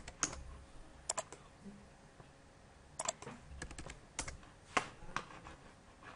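Computer keyboard and mouse clicks: a scattered handful of short, sharp clicks, several in quick pairs, as dimension numbers are typed in and entered.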